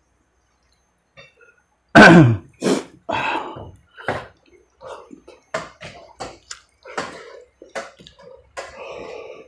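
Wet mouth sounds of a person eating with his hands. About two seconds in comes a loud slurp whose pitch falls, and it is followed by a run of short smacking and chewing clicks.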